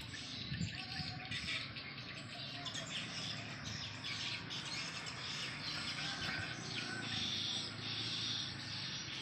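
Birds chirping against a steady high-pitched outdoor chorus, with many short calls throughout.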